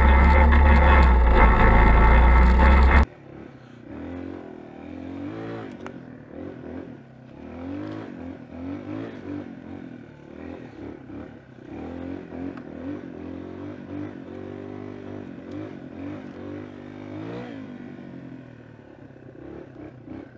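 For about the first three seconds, a four-wheeler's engine as a loud, steady drone. Then the Yamaha XT225 dual-sport's single-cylinder four-stroke engine revving up and down over and over as the bike is ridden up a trail climb.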